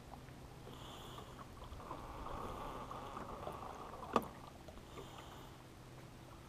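Faint water lapping against a boat, with a single sharp click about four seconds in.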